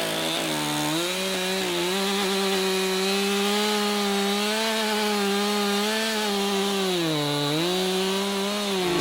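Gas chainsaw running at high revs while cutting into a log, its engine note holding steady but dipping in pitch a couple of times early on and once for longer near the end, as the chain bogs under load in the wood.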